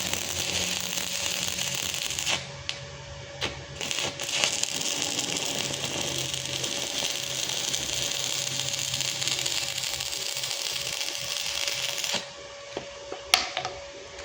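Electric arc welding on a test weld from an inverter welder just repaired of an OC fault: the arc hisses and crackles steadily, breaking off briefly a few times between about two and four and a half seconds in, and stops about twelve seconds in. A faint steady tone runs underneath, and a sharp click comes near the end.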